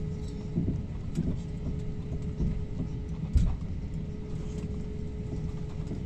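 Airliner cabin noise on final approach: a steady rumble of engines and airflow with a constant hum, and a single sharp thump about three and a half seconds in.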